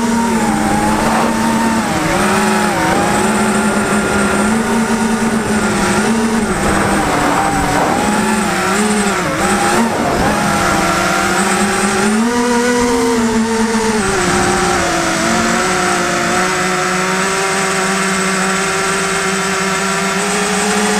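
FPV racing quadcopter's motors whining in flight, the pitch rising and dipping with the throttle, then holding steadier for the last several seconds.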